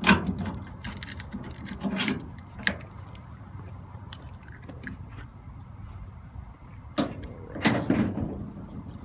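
Keys and metal lock hardware jangling and clinking in a few short bursts: at the start, around two seconds in, and again near the end. A steady low rumble runs underneath.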